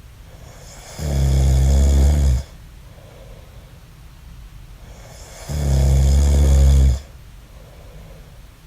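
A man snoring: two loud snores about four and a half seconds apart, each lasting about a second and a half, with faint breathing between.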